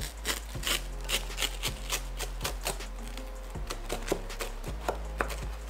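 Knife sawing through a crisp, dry-topped oven-toasted bread sandwich on a wooden cutting board, the crust crackling in quick, irregular crunches.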